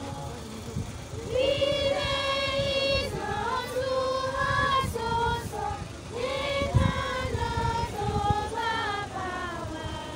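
A group of girls' and young women's voices singing a hymn together, unaccompanied, in long held notes; a louder phrase begins about a second in.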